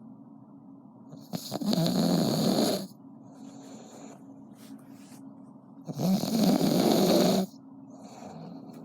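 Snoring: two long, loud snores about four and a half seconds apart, each lasting about a second and a half, with quieter breaths in between.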